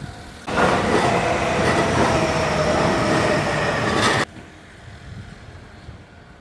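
Train passing close by: a loud rush of wheel-on-rail noise with a faint steady whine in it, about three and a half seconds long. It begins and cuts off abruptly.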